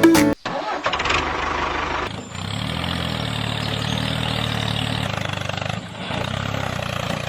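Engine running steadily with a fast, even chugging, dipping briefly twice.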